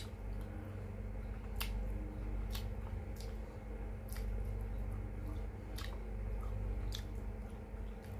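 A person chewing a mouthful of vinegar-stewed fish (paksiw na isda) close to the microphone, with about six sharp wet smacks at irregular intervals. A steady low hum runs underneath.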